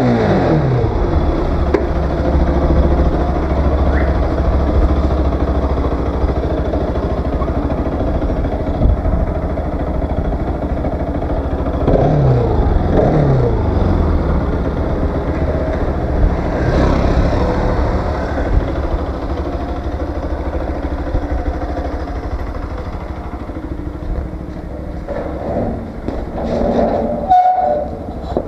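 Motorcycle engine running on the move. Its pitch falls as it slows near the start, and twice more about halfway through.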